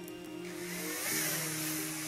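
Small Air:bit quadcopter's four motors and propellers spinning up about half a second in, then holding a loud high-pitched buzzing hiss, over background music.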